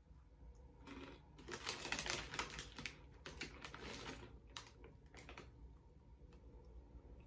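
Plastic snack packet crinkling as a hand rummages in it: a dense run of fast crackles from about a second and a half to four seconds in, with scattered single crackles before and after.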